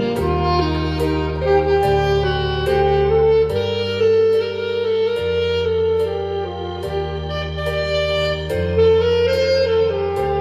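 Saxophone playing a melody over an accompaniment with a held bass line and a steady ticking beat.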